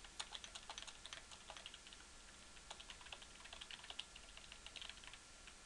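Computer keyboard typing: faint, quick, irregular keystrokes, as lines of code are entered and edited.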